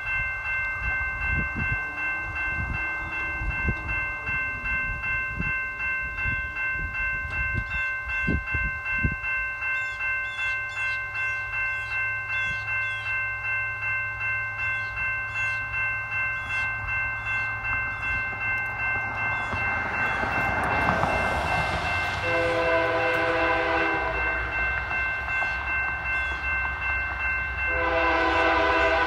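Railroad grade crossing bell ringing steadily at about two strokes a second as a train approaches. The lead locomotive, a CSX SD70MAC, sounds its horn in two blasts: one about three-quarters of the way through, and a second starting near the end that carries on.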